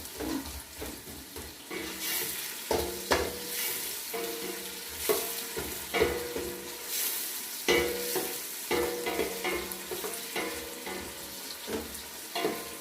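Onions frying and sizzling in a hot cooking pot while a spoon stirs them, scraping and knocking against the pot about once or twice a second.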